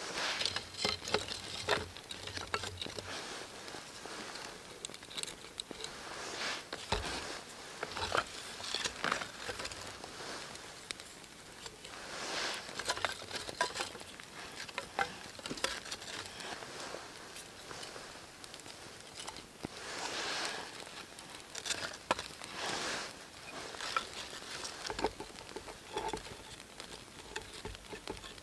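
Small kindling fire crackling as the flame catches, with frequent sharp clicks and knocks of thin split wooden sticks being laid against each other over it, and short swells of rustling.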